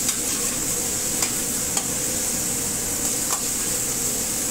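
Chicken pieces frying in butter in a pan on a gas range, with a steady sizzle. A metal ladle stirring them clinks against the pan about four times.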